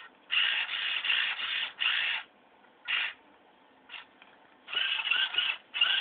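Hobby servo motors of a Lego robot arm whirring in short bursts as the arm swings, the gear whine rising and falling in pitch with each move.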